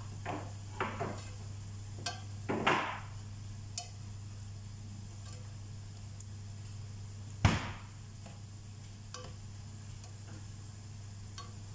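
Metal spoon stirring broccoli in a stainless steel pan, knocking and scraping against the metal with several light clinks in the first few seconds and one loud clank about seven and a half seconds in. A steady low hum runs underneath.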